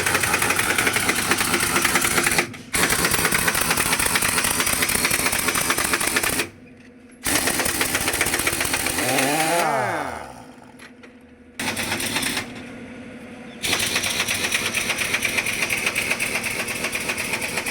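Pneumatic impact wrench hammering in several long bursts with short pauses between them, undoing the truck's wheel nuts.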